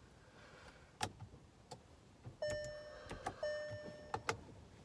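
Two steady electronic beeps, each about half a second long, a little past the middle, among a few soft clicks.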